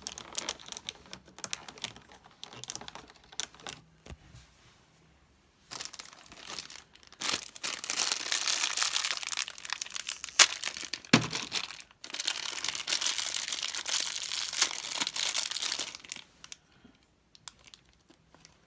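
Sealed packet of a mini collectible being torn open and crinkled by hand. A few light clicks and rustles come first, then steady crinkling through the middle, broken by a sharp snap about halfway.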